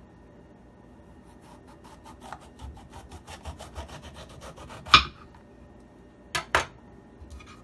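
Kitchen knife sawing through a green bell pepper on a wooden cutting board: a quick run of short strokes, several a second, ending in a loud knock on the board about five seconds in. Two more knocks follow close together a moment later.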